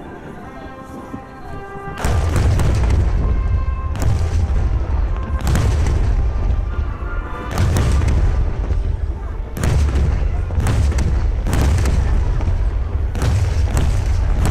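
Fireworks starmine bursting in a rapid, irregular series of loud booms, starting about two seconds in, each with a deep rumbling echo. Music accompanying the show plays underneath, alone at first.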